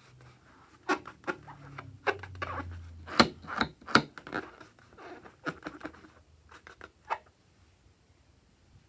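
Fingers handling a rubber balloon: scattered taps and scratchy rubbing, dying away after about seven seconds.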